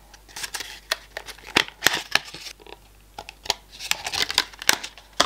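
Hands handling a small part in its plastic packaging: crinkling and rustling with many scattered sharp clicks and taps.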